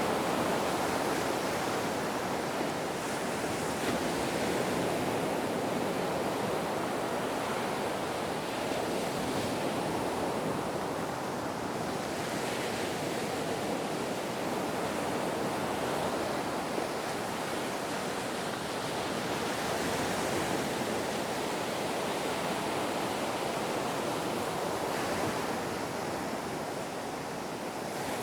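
Ocean waves breaking and washing continuously, the surf swelling and easing slowly, with some wind.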